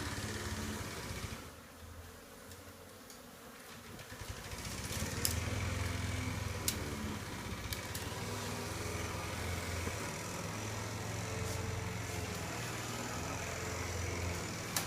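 A lawn mower engine running steadily in the background. It fades out about a second and a half in and comes back stronger a couple of seconds later, under the buzz of honey bees.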